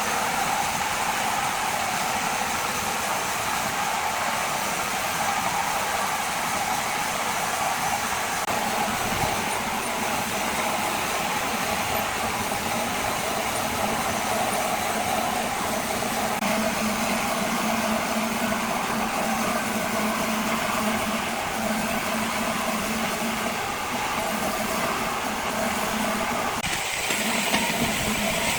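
A large machine running steadily, with a continuous drone; its sound changes a little near the end.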